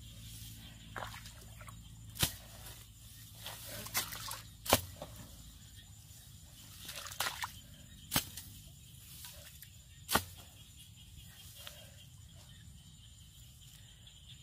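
A metal pipe jabbed and levered into a wet mud bank to dig out a crab burrow: about five sharp knocks a second or two apart, with wet squelching and sloshing of mud and water between them, quieter near the end.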